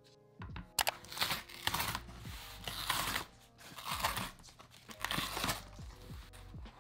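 Cardboard shipping box's perforated tear strip being ripped open: a series of short tearing rips, starting about a second in and recurring several times.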